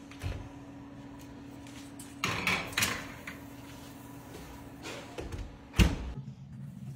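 GE Profile wall oven door pulled open with a knock, then a metal muffin tin clattering as it slides onto the oven rack, and the oven door shut with a loud thud near the end. A steady low hum runs underneath.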